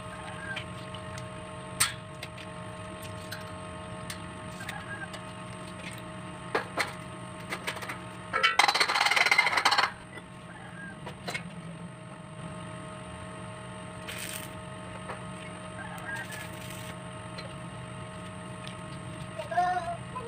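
Scattered light clinks of steel pipe being handled and clamped, with chickens clucking now and then, several times near the end. About eight seconds in comes a loud harsh rasping noise lasting about a second and a half, louder than anything else.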